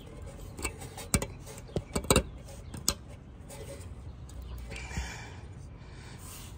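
Sharp metallic clicks and knocks of a caliper cover's metal mounting clip being worked into place against the brake caliper, several within the first three seconds, the loudest a quick double knock about two seconds in.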